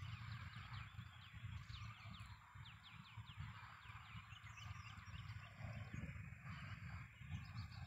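Birds chirping faintly: a quick run of short, falling chirps through the first few seconds, over a low, uneven rumble.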